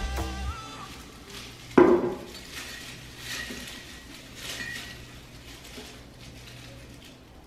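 A ceramic pitcher is set down on a table about two seconds in: one sharp clunk with a short ring, the loudest sound. After it comes soft, scattered rustling of artificial flower stems being adjusted in the pitcher.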